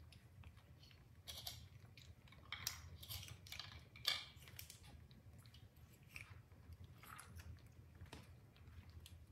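Baby monkeys chewing and biting fruit, pomegranate among it: quiet, scattered wet crunches and smacks, the loudest about four seconds in, over a faint steady low hum.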